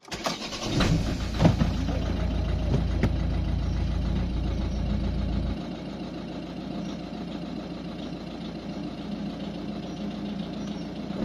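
Volvo V50's 1.6-litre four-cylinder diesel starting and idling rough, like a tractor, on new injectors not yet coded to the ECU. It runs louder for about the first five seconds, then settles to a quieter, steady idle.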